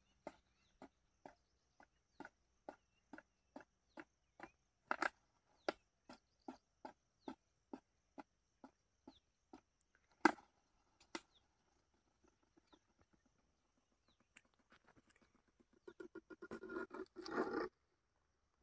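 Faint, regular tapping on a thin plastic bottle, about two or three taps a second, then two louder knocks around ten seconds in. Near the end comes a short burst of plastic crackling as the bottle is handled and the cobra slides out of it.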